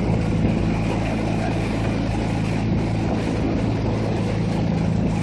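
Outboard motor of a coaching launch running at a steady speed: a constant low hum with a hiss over it.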